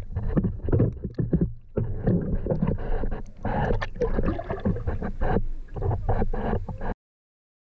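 Water sloshing and splashing with irregular knocks around a small fishing boat while a fish is reeled up. It cuts off abruptly about seven seconds in.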